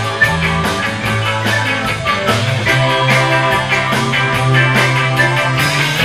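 Surf rock band playing an instrumental live: a Mosrite electric guitar carries the tune over a second guitar, bass and a steady drum beat.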